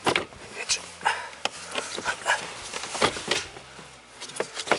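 Irregular plastic knocks, clicks and scrapes as a car's heater blower housing is pushed and wiggled into place under the dashboard to seat it on its locating pins.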